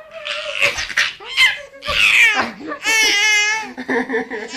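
A baby laughing in high-pitched bursts and squeals, with a long held squealing laugh about three seconds in.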